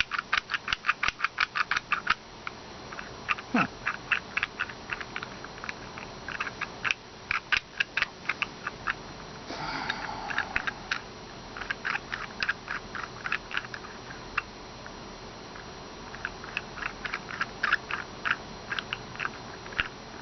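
Wooden puzzle box being twisted by hand: its turning pieces ratchet with quick runs of small, sharp wooden clicks, several a second, broken by short pauses.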